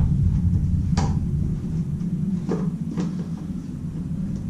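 Three short, sharp clicks of a spanner and a loosened nut being handled, one about a second in and two more around two and a half to three seconds, over a steady low rumble.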